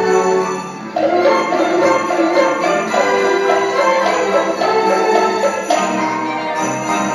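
High school orchestra playing, with sleigh bells jingling throughout over sustained notes. The ensemble drops briefly just before a second in and comes back in full at about one second.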